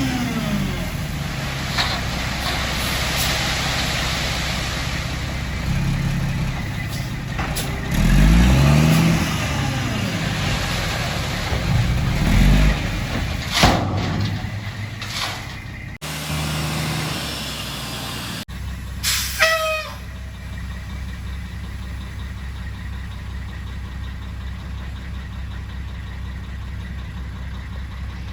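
Dump truck's diesel engine running and revving as it delivers a load of asphalt millings, with a short falling squeal about twenty seconds in, after which the engine settles to a steady, quieter run.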